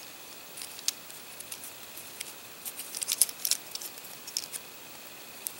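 Light plastic clicks and rubbing as the jointed feet of a Bakugan toy figure are turned outward by hand; the clicks are scattered and come thickest about three seconds in.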